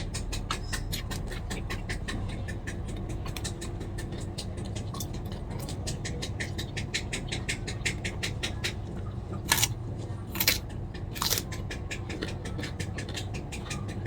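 Close-miked chewing of food, a quick run of crisp clicks several times a second, with three louder crunches about two-thirds of the way through. A steady low hum runs underneath.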